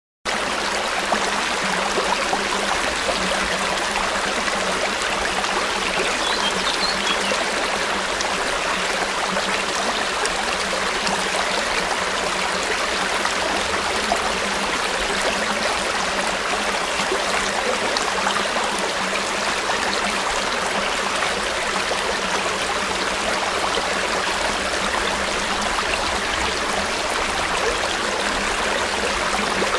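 River water flowing steadily over rocks, an even rushing and burbling with no pauses.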